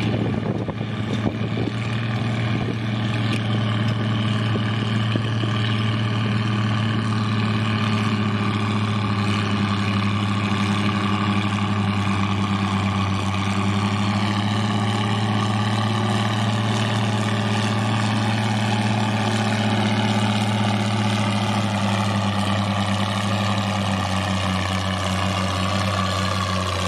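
Antique Oliver farm tractor's engine running steadily under load as it pulls a weight-transfer sled, a constant low drone.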